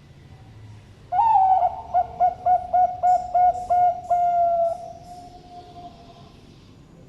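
Zebra dove (Bangkok perkutut) cooing one full song phrase: a long opening note, a quick run of short notes, then a long held end note that fades out.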